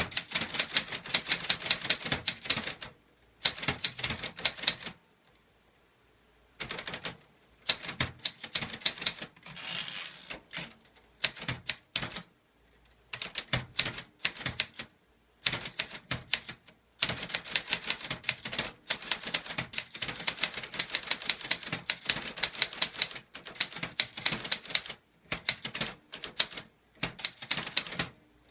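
Clover Top Star 10S Korean manual typewriter being typed on without an ink ribbon: rapid runs of sharp key and typebar strikes broken by short pauses, with a brief high ring about seven seconds in.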